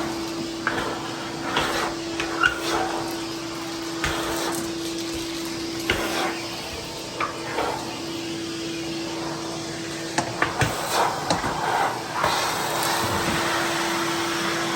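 Ridgid 16-gallon wet/dry shop vac running steadily with a constant motor whine, sucking up cement chunks and debris that click and clack as they are pulled through the hose, most thickly about ten to twelve seconds in.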